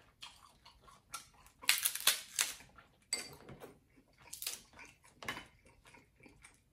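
Cooked snow crab leg shells cracking and snapping as they are broken apart by hand, a run of sharp crackles and clicks, loudest about two seconds in.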